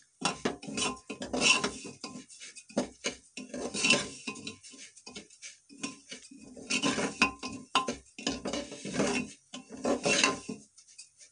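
Metal spoon scraping and knocking against the inside of a metal pressure cooker in irregular strokes, stirring broken wheat (dalia) as it roasts in ghee.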